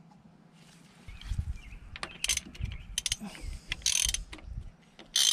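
Irregular metallic clicks, knocks and clatter of hand tools and engine parts being handled around a boat engine's open distributor, starting about a second in, with a sharper burst near the end.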